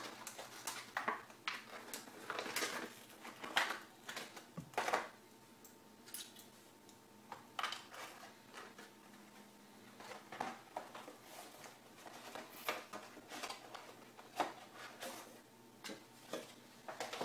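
Clear plastic packaging tray rustling and crinkling as it is handled, with irregular clicks and taps while a gaming mouse is pulled out and set down, then cardboard and paper rustling near the end as the box insert is lifted.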